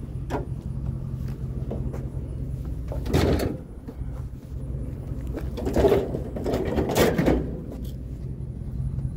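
Vehicle engine running steadily with a low hum, with three short clattering noises about three, six and seven seconds in.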